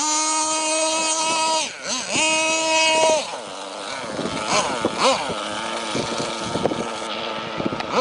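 HPI Tornado nitro RC truck's small two-stroke glow engine screaming at full throttle in two long, steady, high-pitched runs, the first about two seconds and the second about one, with a brief drop between them. After that it runs lower and unevenly, with short revs up and down.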